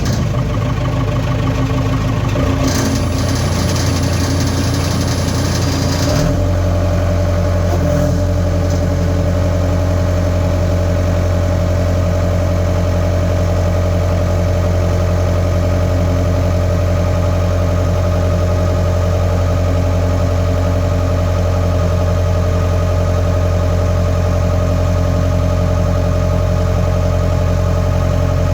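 Skid steer engine running just after being started, with extra higher-pitched noise for the first few seconds before it settles into a steady idle about six seconds in.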